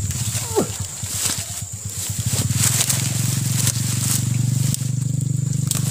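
A man's low, strained grunting as he heaves a heavy oil palm fruit bunch up from a kneeling position, held for several seconds with a brief break near the end, over rustling of leaves and undergrowth.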